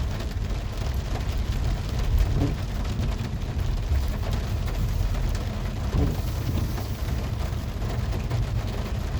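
Rain falling on the van, with its engine and tyres giving a steady low rumble as it creeps through a parking lot, heard from inside the cab.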